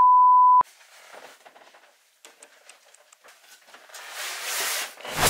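A steady test-pattern beep, one pitch held for just over half a second and cut off sharply. After it, faint clicks and rustling of handling, swelling into a louder rustle about four seconds in that ends with a thump.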